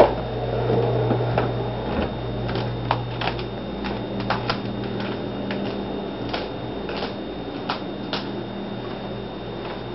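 Footsteps across carpet and vinyl tile flooring, with camera handling noise: scattered light taps and clicks over a steady low hum.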